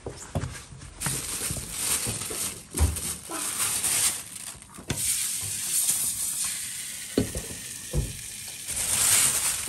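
A thin pancake sizzling in a nonstick frying pan, starting about a second in, with a few sharp knocks of the pan and spatula.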